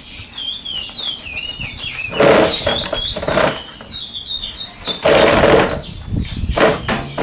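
Birds chirping and warbling in the background, with two louder bursts of rustling, about two and five seconds in, as a glove and a cloth rag are handled.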